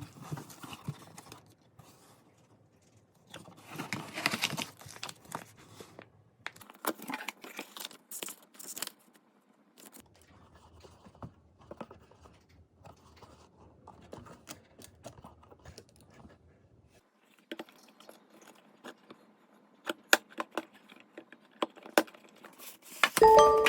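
Scattered handling sounds: rustling and tearing of packaging or paper, mixed with small clicks, taps and clinks of objects being set down, in irregular bursts with short pauses.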